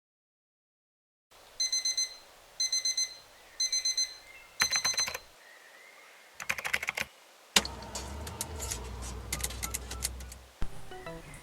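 An alarm clock beeping in three quick groups of short high beeps about a second apart. After it come sharp clicks and rustling, as of the alarm being handled and switched off.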